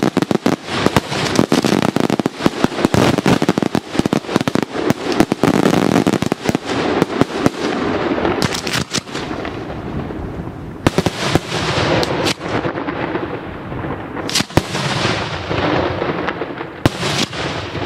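Daytime aerial fireworks bursting overhead: a dense, rapid barrage of sharp bangs and crackling for the first six or seven seconds, then thinning to a few scattered loud reports over a rolling rumble of echoes.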